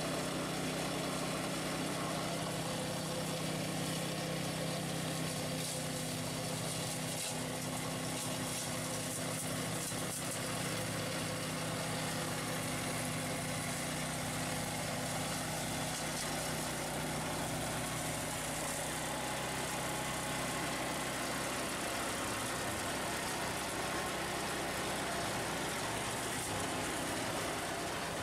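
ATV-mounted RAMMY flail mower running: its own small petrol engine drives the flails while the ATV engine runs along with it, making a steady mechanical drone that shifts slightly in pitch about two-thirds of the way through.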